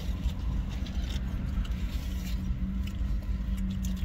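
Car engine idling, heard from inside the cabin as a steady low rumble and hum, with a few faint clicks and rustles over it.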